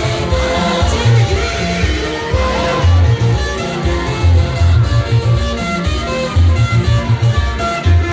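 Loud amplified worship band music with a strong, pulsing bass line.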